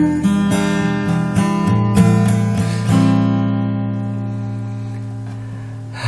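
Acoustic guitar strumming chords in an instrumental passage of an acoustic pop song. About halfway through, one chord is struck and left to ring, fading away.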